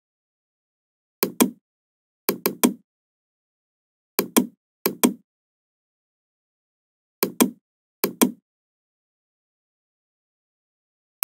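A computer mouse being clicked about six times at irregular intervals, with silence between. Each click is a quick double tick as the button is pressed and released.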